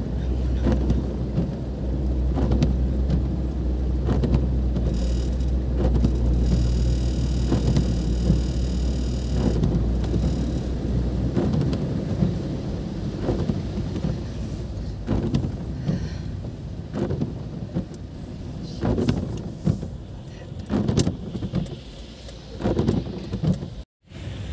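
Car driving through floodwater in heavy rain, heard from inside the cabin: a strong low rumble of water and road noise with rain beating on the car and irregular swishes. The rumble eases about eleven seconds in as the car reaches a road that is wet but no longer flooded.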